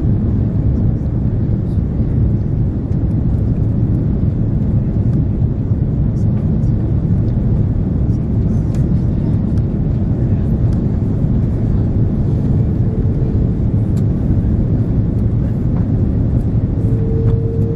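Steady low rumble of an Airbus A330-300's engines and airflow, heard inside the passenger cabin on approach. A faint steady hum joins it briefly about twelve seconds in and again near the end.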